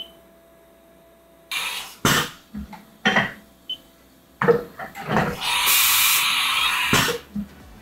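Haas VF-0E CNC vertical mill run from its control: a short keypad beep at the start, then a series of mechanical knocks and clunks, and an air hiss lasting about a second and a half near the end.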